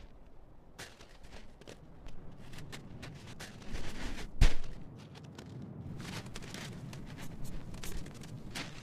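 Arctic wolf's footsteps, a run of irregular scuffs and crunches, with one heavy thump about four and a half seconds in as it pounces on small prey.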